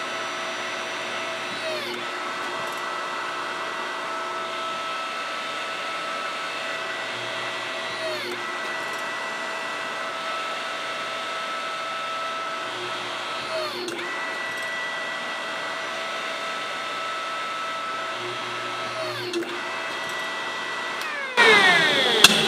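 Electric hydraulic pump driving the ram of a Potter press: a steady motor whine that dips in pitch about every five to six seconds. Near the end the sound turns suddenly louder, with a falling pitch.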